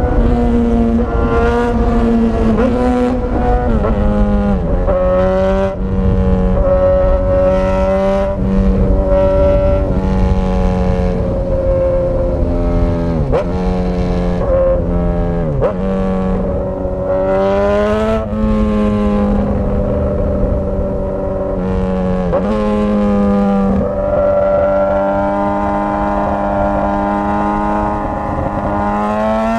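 Straight-piped Suzuki GSX-S1000 inline-four engine running under way, loud and raspy through the open exhaust. Its pitch holds steady for stretches, then several times drops sharply and climbs again as the throttle is closed and opened and gears change.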